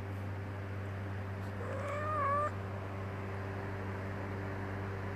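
A cat meows once, a call of under a second about two seconds in, over a steady low hum.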